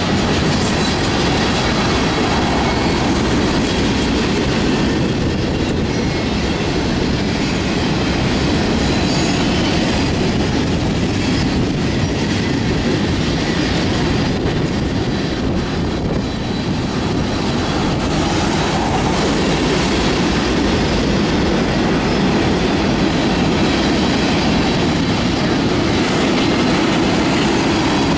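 Freight train cars (covered hoppers, tank cars and boxcars) rolling steadily past: a continuous rumble and clatter of steel wheels on the rails.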